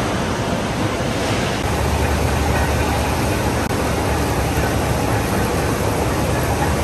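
Steady machinery din of a steel rebar rolling mill running, with a heavier low rumble setting in about two seconds in. The sound breaks off for a moment just past halfway.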